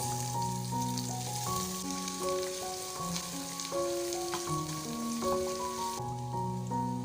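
Food sizzling as it fries in a hot pan, a dense crackling hiss that falls away about six seconds in. Soft piano background music plays throughout.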